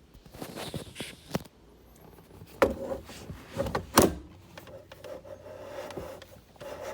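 A few sharp clunks from the new aftermarket steering wheel and quick-release hub as it is tried, the loudest about four seconds in, then a steady rubbing squeal that swells and fades as the wheel turns: the plastic trim is rubbing against the steering column.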